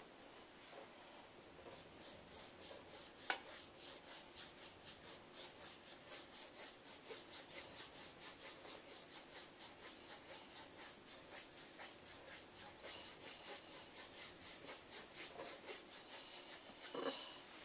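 Paintbrush scrubbing back and forth on a canvas, a rhythmic rasping stroke about three times a second. A single sharp click about three seconds in.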